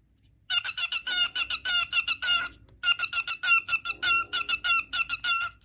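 A cockatiel chirping in a fast run of short, repeated notes, about five a second, with a brief pause near the middle.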